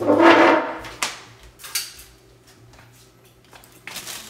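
Plastic wrapping around a sewing machine rustling and crinkling as it is handled, with a short loud sound at the very start and two sharp clicks about one and nearly two seconds in; the crinkling picks up again near the end.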